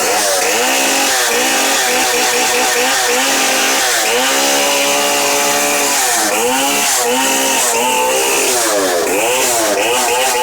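Stihl Contra two-stroke chainsaw running loud, revved up and down over and over so its pitch swoops every second or so, with a longer held high rev about four seconds in.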